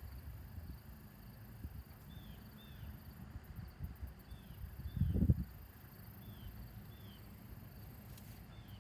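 Outdoor ambience: a bird repeats a short two-note chirp every couple of seconds over a steady low rumble, with a brief louder low rumble about five seconds in.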